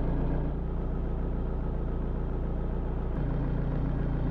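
Steady low engine and road drone heard inside the cabin of a 2005 Saab estate car driving slowly, the engine turning at about 1,200 rpm.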